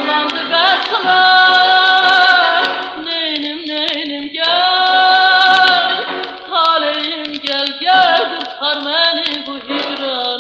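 A female singer performing an Azerbaijani song, played from an old gramophone record. She holds long notes with vibrato and glides between them, over instrumental accompaniment.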